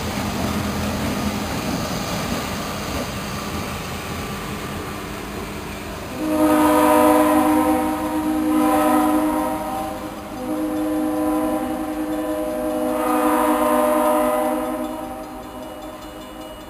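EMD GP35R diesel locomotive's multi-chime air horn sounding two long blasts, one about six seconds in and a second right after it, over the rumble of the locomotive's diesel engine running. The horn fades away near the end.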